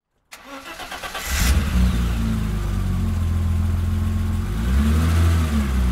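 Engine sound effect for the animated monster-truck graphic. It opens with a brief whoosh, then runs steadily low, and the pitch dips and rises once near the end.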